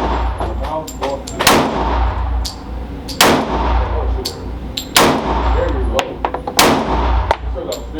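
Glock 23 .40 S&W pistol fired at a slow, steady pace: four loud shots roughly one every second and a half to two seconds, each with a booming echo, and a few fainter cracks between them.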